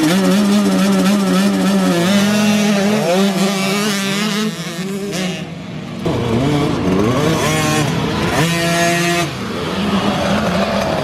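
Small motor vehicles running and revving, their engine pitch climbing and dropping again and again.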